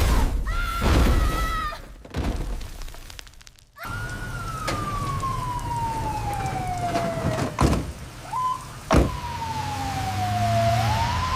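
Siren wailing in long, slow falling sweeps that turn upward again near the end, over a low rumble, with two sharp thuds a second and a half apart in the middle. It opens with a few seconds of loud rumbling.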